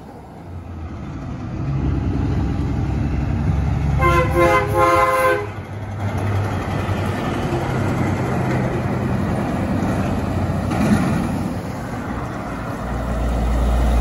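Eighteen-wheeler's multi-tone air horn sounding once for about a second and a half, about four seconds in, over the low rumble and road noise of passing trucks.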